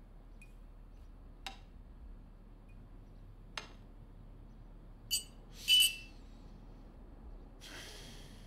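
Small drinking glasses clinking together in a toast: a couple of faint taps, then two short ringing clinks a little after five seconds in, the second louder. A soft noise follows near the end.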